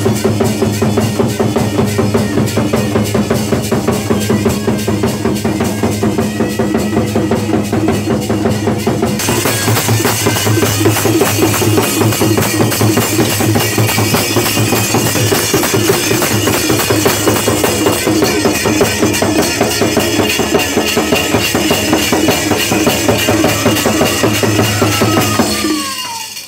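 Loud music with a heavy, fast drum beat over a steady low drone; it stops near the end.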